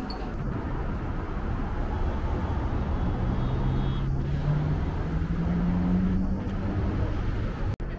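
Road traffic: a steady rumble of cars passing, with an engine note climbing in pitch in the middle as a vehicle pulls away.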